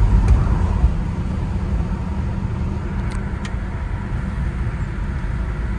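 A 1971 Dodge Dart Swinger cruising, heard from inside the cabin: its slant-six engine runs steadily under a low rumble of road and wind noise.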